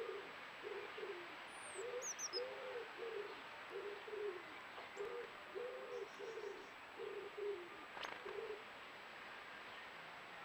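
A pigeon cooing in repeated low phrases of several notes, stopping about two seconds before the end. A small bird gives a few brief high chirps about two seconds in.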